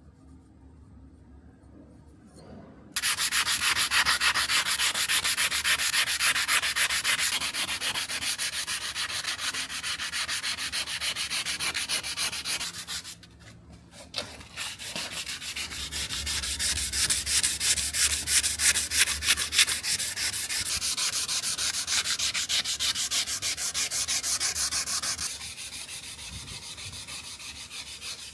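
Sanding of a steel knife blade: a steady, rapid scraping that starts abruptly about three seconds in, stops briefly midway, then resumes and eases off near the end.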